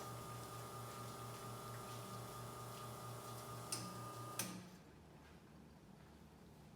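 La Marzocco Linea PB espresso machine running with a steady, faintly pulsing hum and a high whine. The hum cuts off with a click about four and a half seconds in, leaving a quieter background.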